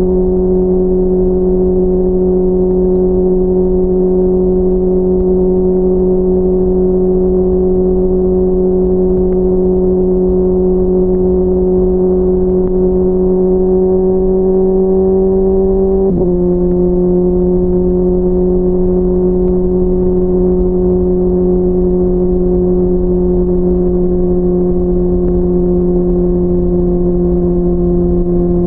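Honda CBR600RR inline-four engine running under steady throttle while riding, its pitch creeping slowly upward, then stepping down sharply once about sixteen seconds in and holding steady again.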